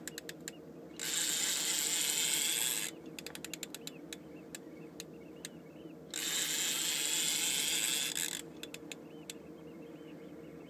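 Fishing reel under load from a hooked coalfish: rapid ticking clicks, broken twice by a loud buzzing of the drag lasting about two seconds each time as the fish pulls line off the spool.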